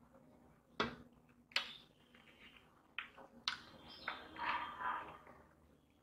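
Eating with the hand from a steel plate: several short sharp clicks of fingers and rice against the steel, then a stretch of wet chewing and mouth sounds about two-thirds of the way in.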